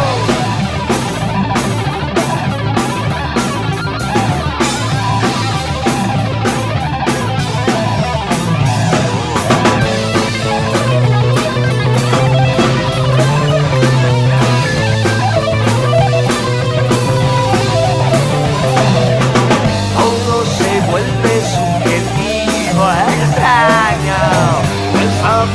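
Instrumental break of a rock song by a guitar, bass and drums trio: electric guitar, bass guitar and drum kit playing together at a steady, loud level.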